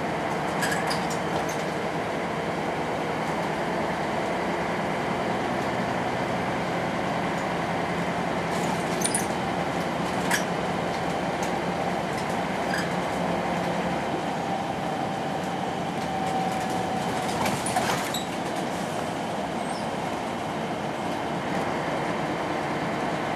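Volvo B10M bus under way, heard from inside the passenger cabin: the steady running of its underfloor six-cylinder diesel engine mixed with road and tyre noise. Short sharp rattles and clicks from the body and window fittings come now and then, a cluster about nine to ten seconds in and another near eighteen seconds.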